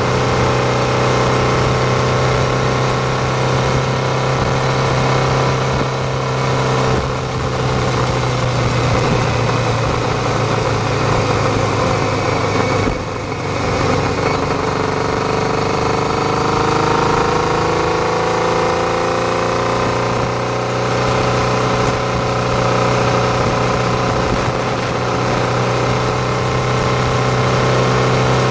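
Honda CBR600F2's inline-four engine running under way, with wind and road noise over it. Its note dips briefly about halfway, then rises steadily in pitch over several seconds as the bike accelerates.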